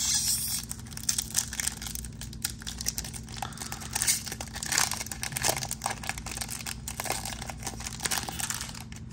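Foil wrapper of a Pokémon booster pack crinkling and tearing as it is opened, a dense run of crackles.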